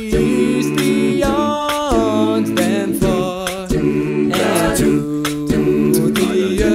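Student a cappella group singing sustained chords in close harmony with no clear words. Short, sharp percussive hits fall between the chords.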